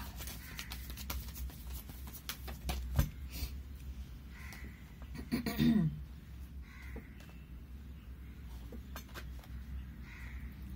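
Oracle cards being shuffled and dealt onto a cloth-covered table: soft slides and light taps of card stock, with one sharper knock about three seconds in. Just before six seconds a short sound falling in pitch stands out, over a low steady hum.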